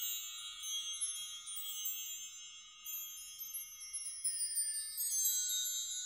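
Shimmering chime sound effect: many high bell-like tones ringing together, with a cluster of them sliding down in pitch over the last few seconds.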